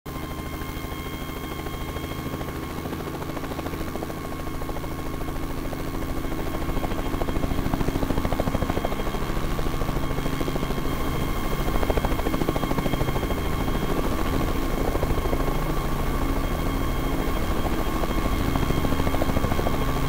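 Tree-trimming helicopter flying, its rotor chop pulsing steadily with a steady high whine over it, growing a little louder after about six seconds.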